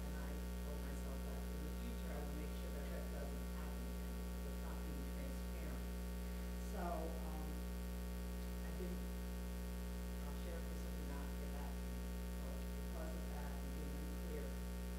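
Steady electrical mains hum on the meeting-room recording, with faint speech underneath.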